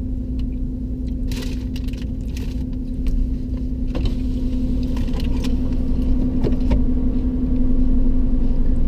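Steady low engine drone with a constant hum, heard from inside a car on a car ferry, with a few light clicks and rattles in the first half. It grows slightly louder from about three seconds in.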